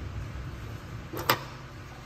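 One sharp plastic click with a brief rattle just before it, about a second and a quarter in: a capsule coffee machine's lever snapping up as the lid is opened to take a capsule. Under it is a low steady hum.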